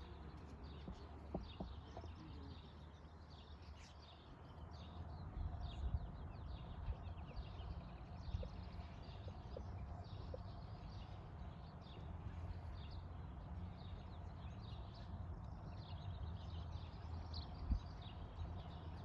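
Faint, muffled hoofbeats of a horse moving through deep arena sand, with small birds chirping throughout.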